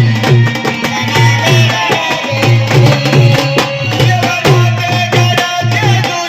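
Indian folk music: a tabla-like hand drum beats a steady, driving rhythm under a gliding melodic line.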